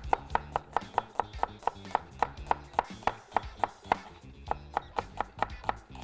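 Cleaver slicing a red onion into thin julienne strips on a wooden cutting board: a steady run of sharp knocks of the blade on the board, about four a second.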